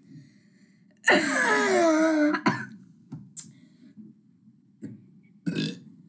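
A boy's long burp about a second in, lasting over a second and sliding down in pitch, followed by a few short, fainter throat sounds, the last near the end.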